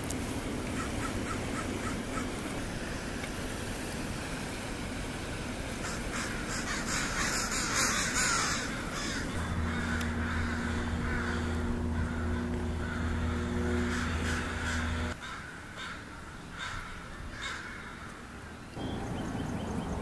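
American crows cawing over the steady wash of small waves on the shore. Past the middle, a steady low mechanical drone holding several fixed tones runs for about five seconds and then stops abruptly.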